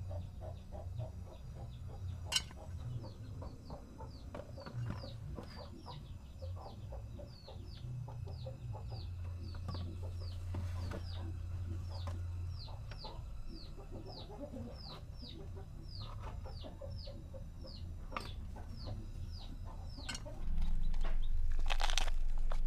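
A bird chirping over and over, short high calls that fall in pitch, about two a second, with a low steady rumble underneath. Near the end a louder steady noise takes over.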